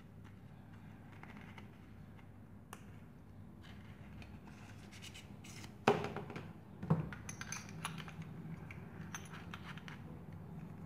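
Handling noise of a steel drill bit and a right-angle drill adapter: a sharp knock about six seconds in and another a second later, then light rattling and scraping as the bit is fitted into the adapter's keyless chuck.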